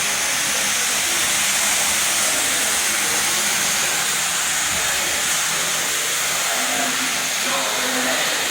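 Fully automatic carpet washing machine running with a steady hiss.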